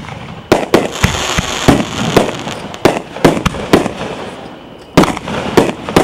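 Aerial fireworks going off in quick succession: a string of sharp bangs about two a second, with crackling hiss between them, a short lull just after the middle, then more bangs near the end.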